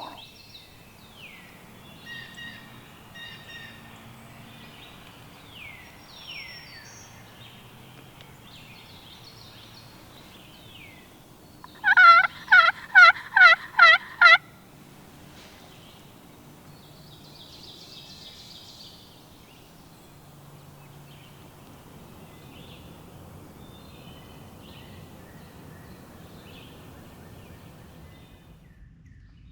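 A loud, close series of about seven turkey yelps, roughly three a second, about twelve seconds in. Fainter, quick falling songbird notes come in the first few seconds.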